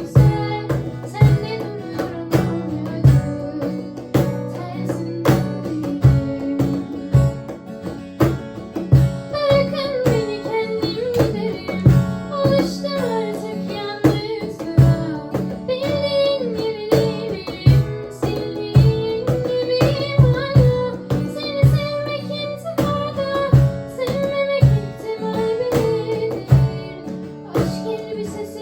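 Instrumental passage of a Turkish pop song: strummed acoustic guitar over a steady cajon beat, with a wavering, ornamented melody line joining about a third of the way in.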